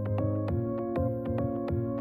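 Instrumental background music: a quick, even run of notes over held chords.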